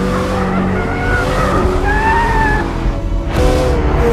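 McLaren 750S sliding through a corner, its tyres squealing with a wavering, rising and falling pitch over the steady drone of its twin-turbo V8. The squeal breaks off briefly about three seconds in.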